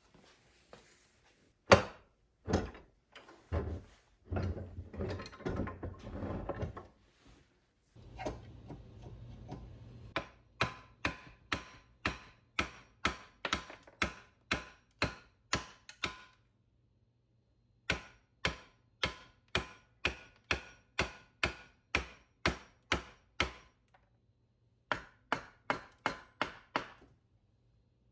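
Wood splitting on a hatchet blade clamped in a bench vise: runs of sharp knocks, about two a second, as a chunk of firewood is struck down onto the blade, with two short pauses. Before this there are several seconds of irregular clatter and rattling.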